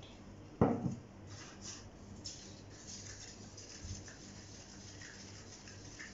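A knock about half a second in as the plastic water jug is set down on the table, then a wooden craft stick stirring and scraping around a small plastic cup, mixing the thick white paint with the water just added to thin it.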